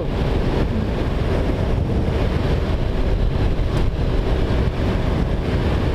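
Motorcycle running at a steady cruising speed under heavy wind rush on the microphone, with a faint steady engine hum beneath the wind.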